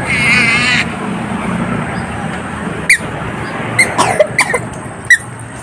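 Roadside traffic noise running steadily. A wavering high-pitched tone sounds for under a second at the start, and a few short high squeaks come later, the last one the loudest.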